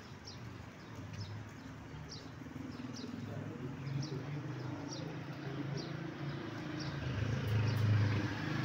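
Caged domestic pigeons cooing, a low, wavering murmur that grows a little louder near the end, with faint short high chirps repeating about once a second.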